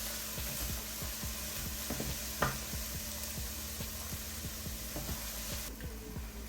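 Food sizzling in a frying pan while it is stirred, with small scrapes and taps and one sharper knock about two and a half seconds in. The sizzle cuts off suddenly near the end.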